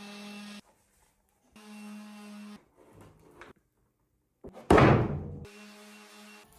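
A steady pitched hum that switches on and off abruptly three times, and a loud thump a little after the middle that dies away over about a second.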